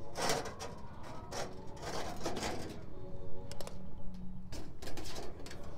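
Hand tin snips cutting through thin sheet-metal chimney flashing, several short cutting strokes with pauses between them, as tabs are cut into the flange.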